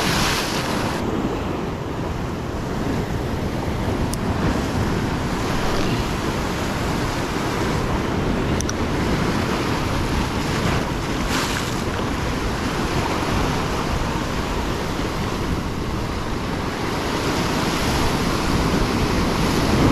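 Ocean surf breaking and washing over rock ledges, with wind buffeting the microphone. Louder rushes of water come near the start and about eleven seconds in.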